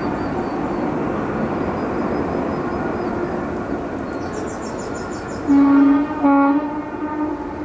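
Distant jet engine noise, a steady rush, from an Airbus A350-900 with Rolls-Royce Trent XWB engines rolling along the runway. A horn honks twice in short blasts about five and a half seconds in.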